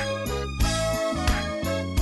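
Background music with a steady beat and bright, chiming melody notes.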